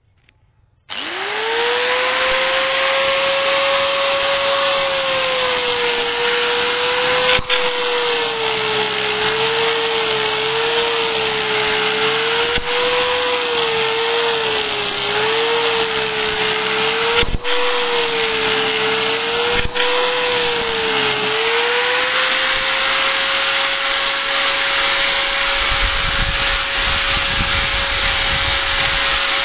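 Angle grinder switched on about a second in, its motor whine rising to speed, then grinding along the steel blade of an electric hand planer to sharpen it. The whine dips and wobbles in pitch through the middle as the disc bears on the blade, and steadies again near the end.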